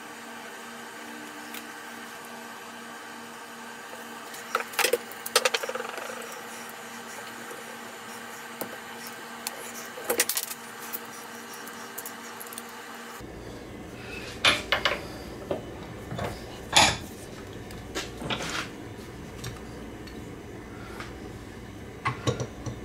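Small Stanley No. 741 vise being handled and assembled: scattered metal clicks and clinks in short clusters as its parts, screw and sliding handle knock together.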